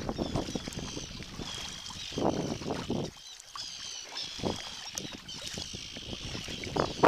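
Sea kayak paddle strokes splashing in the water, a stroke every second or two, over a faint background of wind.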